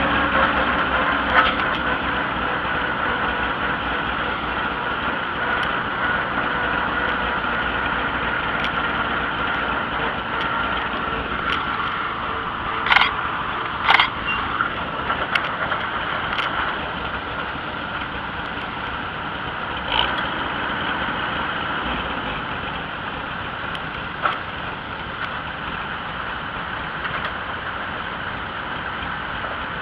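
Vintage farm tractor engine running steadily as the tractor drives along the road, with a few sharp knocks or rattles, two of them close together about halfway through.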